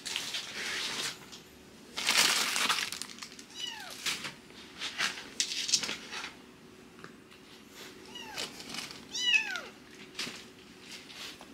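Kittens mewing: three short, high-pitched mews that each fall in pitch, the strongest one near the end. Between them come bursts of rustling and scratching noise, loudest early on.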